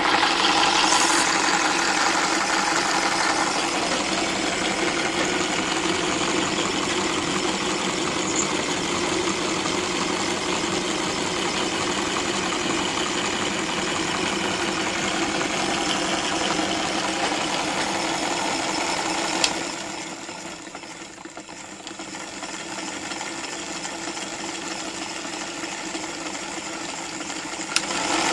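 A homemade model V8 engine driven by electromagnetic coils, running steadily with a fast mechanical clatter from its coils, contact rollers and moving parts. About two-thirds of the way through the sound drops to a much quieter level for several seconds, then comes back up loud near the end.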